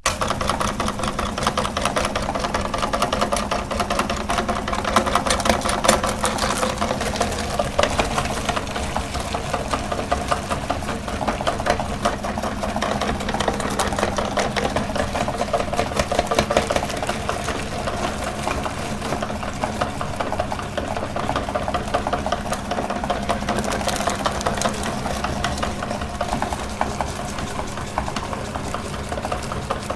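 Electric meat grinder running continuously while grinding ice cream: a steady motor hum with fast, dense rattling. It starts abruptly.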